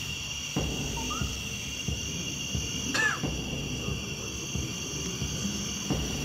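Steady night insect chorus ringing at a few high pitches, with a short arched animal call about three seconds in and scattered soft low knocks.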